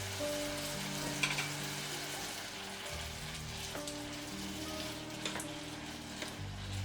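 Food frying and sizzling in a pan, a steady hiss with a few light clicks.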